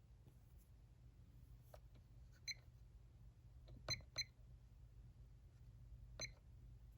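Faint steady low hum of a small DC-motor ceiling fan running, with four short sharp clicks about two and a half, four, four and a quarter and six seconds in.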